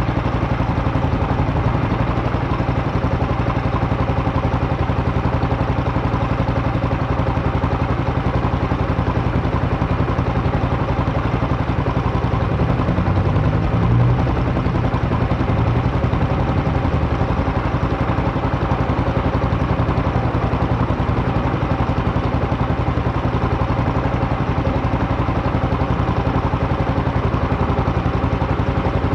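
Buell Blast's air-cooled 492 cc single-cylinder engine idling steadily while it warms up, growing slightly louder for a moment about halfway through.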